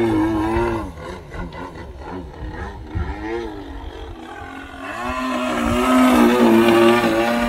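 OS 33GT single-cylinder two-stroke petrol engine of a model Extra 330 aerobatic plane in flight. It is loud at first, drops to a quieter note that wavers in pitch about a second in, then swells back to full loudness from about five seconds in.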